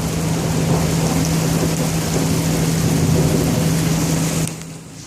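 Heavy thunderstorm rain falling in a steady rush, over a steady low hum; both drop away suddenly near the end.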